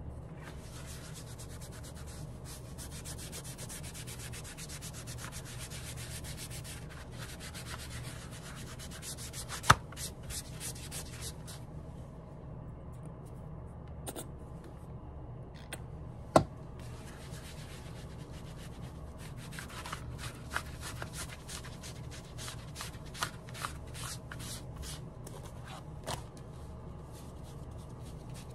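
Sponge and fingertips rubbing quickly back and forth over a leather jacket panel, working a liquid dressing into the leather, with a short pause about halfway. Two sharp knocks stand out, about ten and sixteen seconds in, over a steady low hum.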